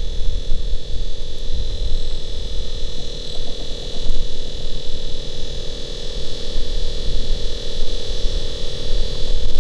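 A steady, dial-tone-like hum at two pitches over a low, uneven rumble, the kind wind makes on an outdoor microphone.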